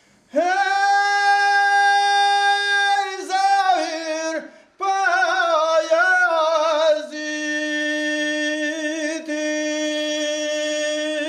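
A man singing unaccompanied in a loud, high voice with a hand cupped to his ear, in the northern Albanian majekrahi style: a long held high note, then wavering ornamented phrases, a brief break, and a lower held note with a wavering vibrato.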